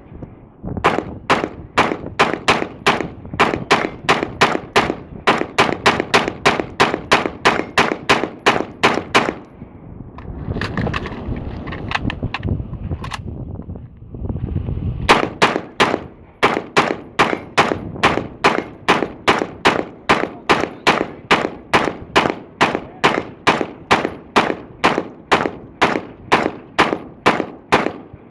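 Rifle fired in rapid, steady shots, about three a second, in a mag dump. The firing breaks off for about five seconds midway, then resumes at the same pace.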